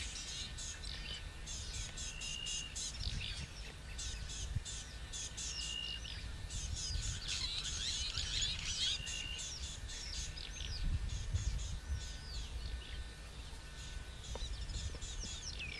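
Bush ambience: several wild birds chirping and trilling, one giving a short high whistle about every three seconds, over a steady low rumble.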